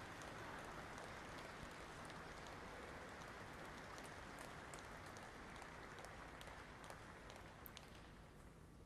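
Near silence: a hushed outdoor ambience, a faint even hiss with scattered small clicks, easing off slightly near the end.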